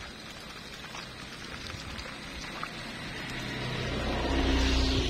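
Tap water running steadily from an outdoor standpipe while hands work a soapy plush toy in a basin of water. Near the end a low steady hum rises and grows louder.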